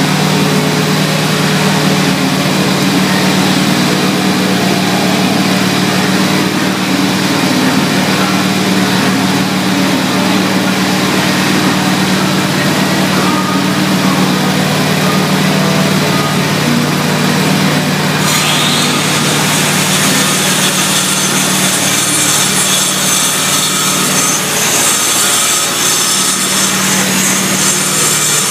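A power tool grinding concrete, running steadily with a scraping, abrasive edge over a low motor hum. This is typical of cleaning out floor cracks and joints. About 18 seconds in, a brighter, hissing grinding sound suddenly joins and keeps on.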